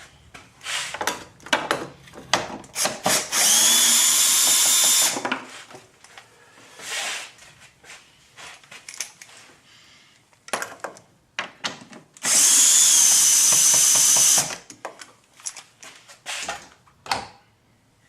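Power drill-driver spinning out the T30 Torx screws of an air filter housing: two long runs of a steady high whine, each a couple of seconds, with short clicks and rattles of the tool and screws between them.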